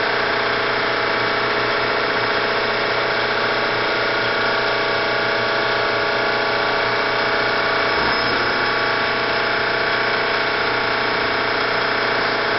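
Siber Hegner RB-1 CNC bed mill running: the steady hum of its 3-horsepower variable-speed milling head, with a brief low thump about eight seconds in.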